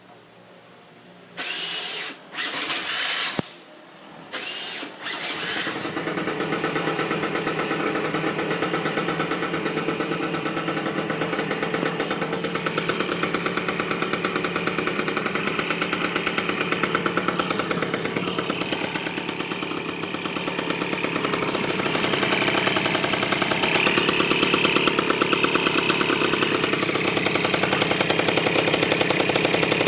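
Honda Giorno scooter engine started from cold after a major overhaul: three short cranking attempts, then it catches about five seconds in and runs steadily at idle, a little faster and louder near the end.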